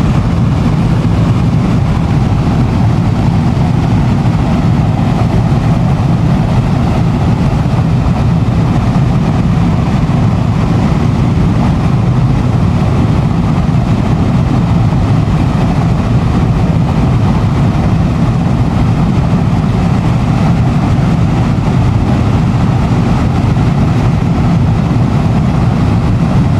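Power-plant steam blowing: high-velocity steam venting through silencers, a loud, steady, deep rush. Steam blowing is the pre-commissioning stage that purges debris from new boiler steam piping before the turbine is run.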